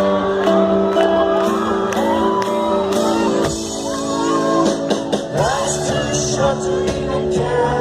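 A live rock band playing a song's introduction, with held chords and a steady drum beat, while a large concert crowd shouts and whoops over the music.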